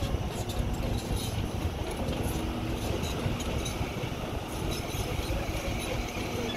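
Diesel engine of heavy piling machinery running steadily, a low rumble, with a faint steady whine on top from about two seconds in.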